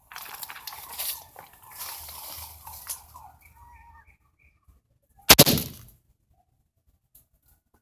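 A single rifle shot about five seconds in, dying away over about half a second, after a few seconds of rustling handling noise.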